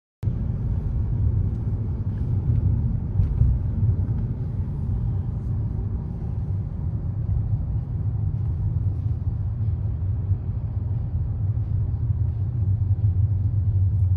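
A steady low rumble that starts abruptly and cuts off suddenly just after the end.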